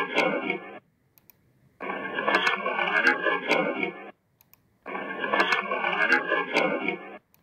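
A short overnight field recording played back again and again through a small radio speaker. Each repeat is a thin-sounding snippet of about two seconds: sharp clicks over muffled, voice-like sounds. One repeat ends about a second in, and two more follow in full with short silences between. The uploader hears a metallic click followed by a few words in a language he can't make out.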